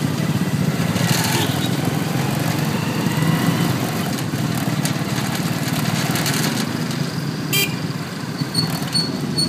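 Steady engine and road noise from riding in a vehicle through city traffic behind a jeepney, with a short high-pitched beep about seven and a half seconds in.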